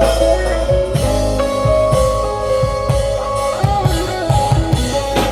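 Live reggae band playing an instrumental passage with no vocals: guitar lines and held notes over bass and drum kit.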